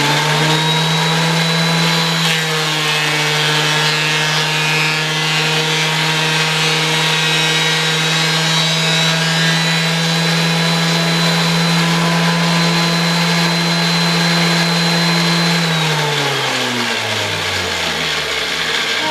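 Thickness planer running loud and steady while a rough board is fed through its cutterhead, planing it to thickness. About 16 s in the motor is switched off and winds down, its pitch falling for about three seconds.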